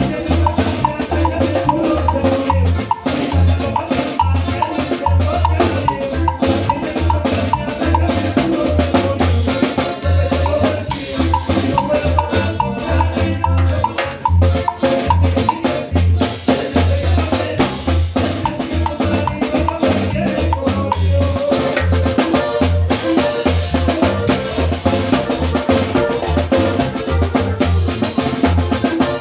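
Norteño zapateado music: drums and bass keep a quick, steady beat under a sustained melody line.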